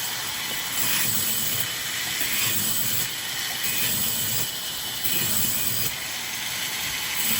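Sawmill saw cutting raw wood: a loud, steady hissing noise from the machinery, brightening and easing again every second or two.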